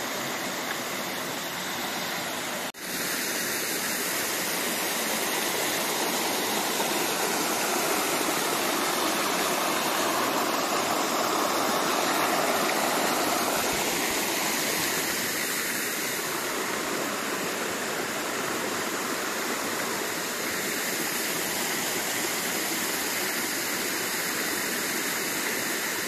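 Water of the Tatlıca waterfall cascades rushing steadily over the rocks, a constant hiss of falling water. It cuts out for an instant about three seconds in.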